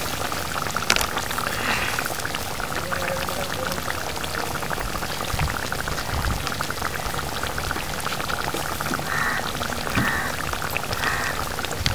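Fish pulusu boiling in a steel kadai, a steady dense crackle of popping bubbles.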